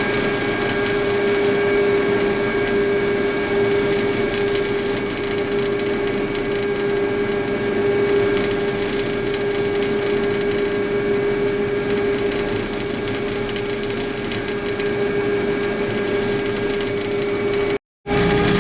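International Harvester 1480 combine running with a steady mechanical clatter and a strong steady hum, as its grain tank is unloaded by the unloading auger.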